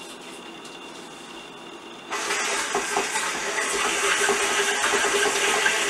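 KitchenAid stand mixer switched on about two seconds in and then running steadily, its beater creaming butter, sugar and flour together in the steel bowl.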